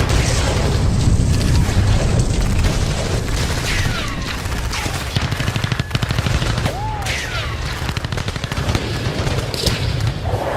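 Battle sound effects: rapid machine-gun fire over a continuous rumble of explosions, with several falling whistles.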